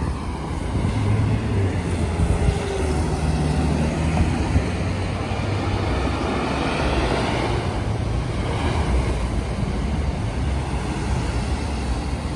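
Scania P280 fire engine's diesel engine running as it crosses a junction and drives past, over steady rumble of town traffic.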